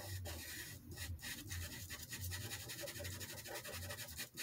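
Soft pastel pencil scratching over paper in short, repeated back-and-forth strokes, about two to three a second, as a small patch of colour is filled in and blended.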